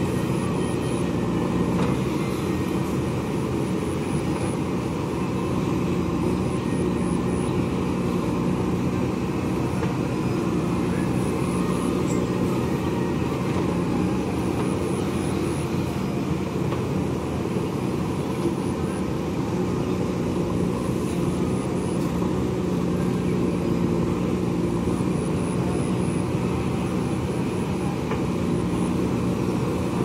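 JCB backhoe loader's diesel engine running steadily under load as the backhoe arm digs mud, a continuous even drone.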